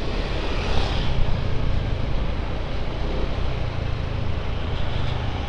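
Heavy wind noise blasting a lapel microphone on a moving scooter, a steady, harsh rush with a constant low rumble and no letting up. The unshielded Boya LM20 lapel mic is badly overloaded by the wind, so the audio is distorted ('sobrang sabog') and painful to the ears.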